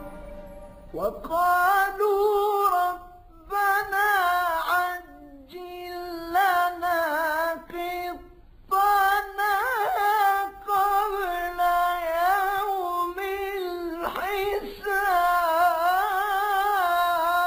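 A single high male voice chanting unaccompanied in the Egyptian religious chanting style (ibtihal/tawashih). It sings several long, ornamented phrases that waver around each held note, with short breaks between the phrases.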